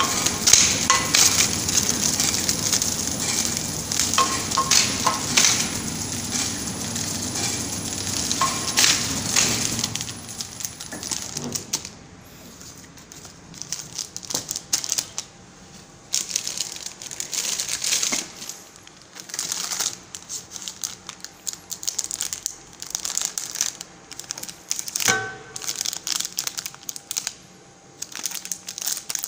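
Plastic-film pillow packs of cake crinkling and rustling as a hand rummages through them and picks them up, in irregular bursts. A steady machinery hum runs underneath for the first ten seconds or so, then stops.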